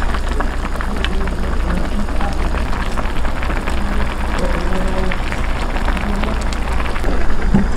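Busy restaurant hubbub: indistinct voices blending into a steady din, with frequent small clinks of dishes and utensils.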